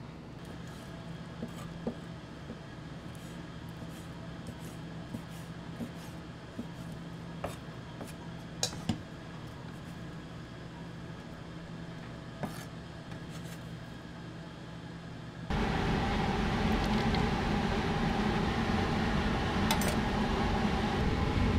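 Kitchen work sounds: scattered clinks of dishes, glass and utensils over a low steady hum. About fifteen seconds in, a much louder steady rushing noise cuts in abruptly.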